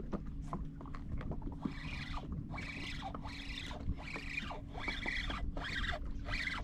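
Fishing reel being cranked to bring in a hooked fish: a rhythmic whirring that starts about a second and a half in and pulses with each turn of the handle, a little under twice a second.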